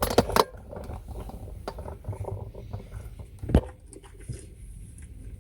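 Clicks, knocks and rustling of people moving about as they get out of a car, with a cluster of sharp knocks at the start and one louder thump about three and a half seconds in.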